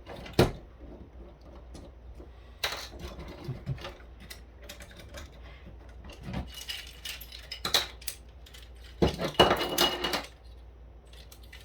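Plastic housing of a VTech cordless phone base station being pried apart by hand: scattered clicks, knocks and scraping from its stubborn snap-fit clips, with a louder burst of clicking about nine seconds in.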